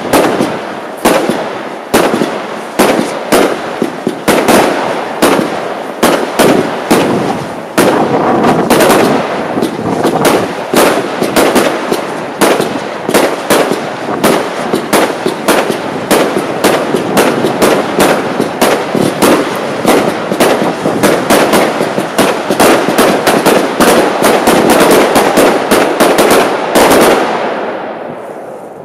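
Lesli Turbo Tvist compound firework cake (made by Lidu) firing a rapid, continuous volley of shots, several a second, over a steady noise of crackle and hiss. The cake finishes about 27 seconds in and the sound dies away.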